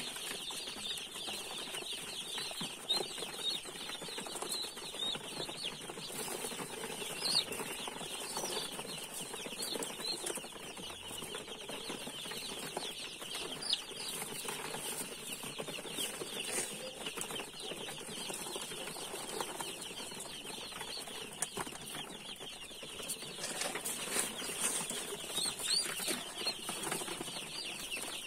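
A large crowd of day-old broiler chicks peeping nonstop, many high, short cheeps overlapping into a steady chorus.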